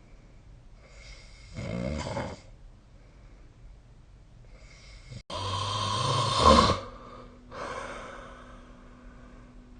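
A sleeping person snoring: a short snore about a second and a half in, then a louder, longer snore from about five and a half to seven seconds, followed by a quieter breathy breath.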